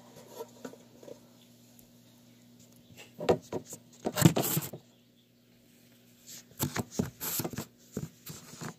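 Plastic cricket container being handled to get a cricket out, rattling and scraping in two bursts of clatter, the louder one about four seconds in, over a faint steady hum.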